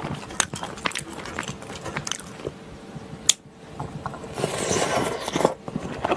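Close-miked chewing and wet mouth sounds of someone eating spicy stir-fried gopchang with chewy Chinese glass noodles and rice cakes, with one sharp click about three seconds in. A longer, louder slurp of noodles follows between about four and five and a half seconds in.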